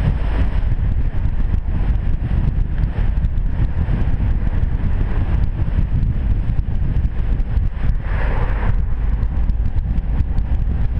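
Audi TT-S turbocharged four-cylinder engine and exhaust cruising at a steady speed, a deep steady rumble mixed with wind buffeting on an outside-mounted camera's microphone. About eight seconds in there is a brief, brighter rush of noise.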